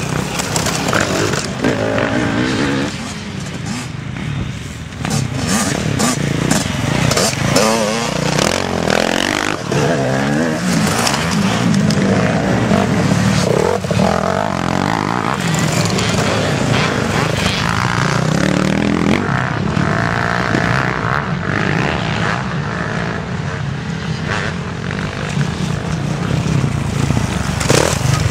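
Enduro dirt bikes racing past close by, one after another, engines revving with pitch rising and falling as riders open and close the throttle over rough ground.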